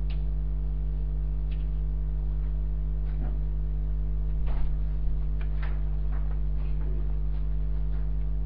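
Steady electrical mains hum with a ladder of overtones, with a few faint scattered taps and knocks over it, the most noticeable about four and a half to five seconds in.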